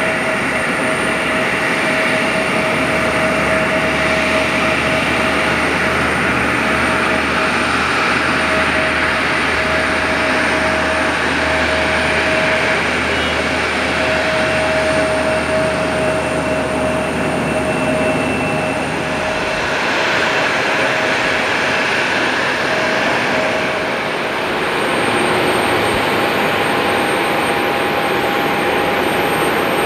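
Turbofan engines of a taxiing Embraer E170 regional jet running at low power: a steady jet whine with a clear held tone. About two-thirds of the way through it gives way to a different steady jet whine with a higher tone, from a Boeing 737-800 waiting at the stand for push-back.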